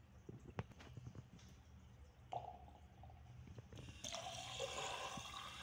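Faint drips and small knocks in a ceramic wash basin. About four seconds in, a tap stream starts pouring onto the drain and runs straight down it, now that plunging has cleared the blockage.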